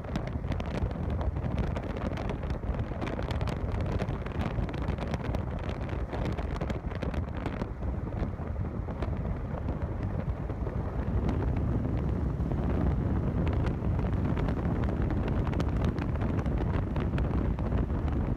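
Steady wind noise on the microphone from a moving vehicle, with the vehicle's road noise underneath, crackling with buffets and growing a little louder in the second half.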